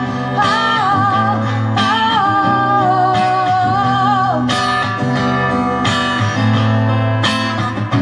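A woman singing a long, held, wavering melody over a strummed acoustic guitar; the voice drops away about halfway through while the guitar strumming goes on.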